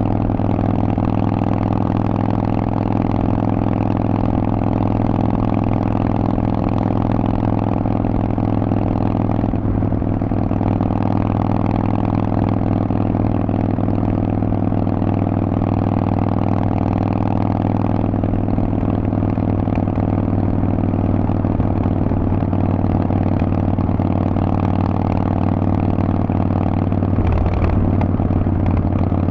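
Harley-Davidson Forty-Eight's air-cooled 1200 cc V-twin running through a Vance & Hines exhaust, holding a steady, even note, with a brief change in the note near the end.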